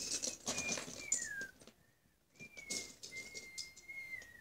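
Someone whistling a few thin notes, some sliding down and the longest held steady near the end, over the scattered clicking and rattling of loose Lego bricks being rummaged through in a plastic bin.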